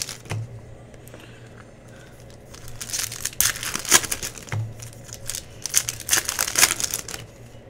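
Plastic trading-card pack wrappers crinkling as they are handled and torn open, in a short burst at the start and a longer run of rustling from about 2.5 s to 7 s.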